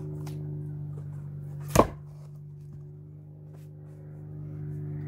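A firewood log set down on a wooden chopping block with a single hard knock, wood on wood, about two seconds in, over a steady low hum.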